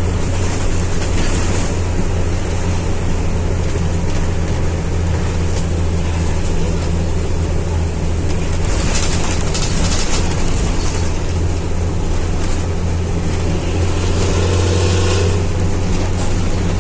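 Diesel engine of a front-engined Hino AK bus running with a steady, deep drone, its exhaust note loud. A brief hiss rises over it about nine seconds in and again near the end.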